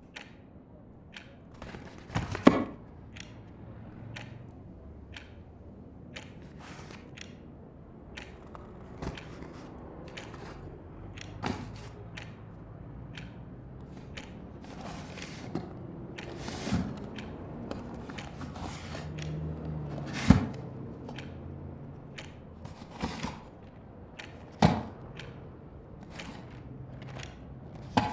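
Indoor room ambience: scattered knocks, taps and thuds of someone moving about and handling things, over a low steady rumble of street traffic outside that swells about two-thirds of the way through. The sharpest knocks come a couple of seconds in, about twenty seconds in and near twenty-five seconds.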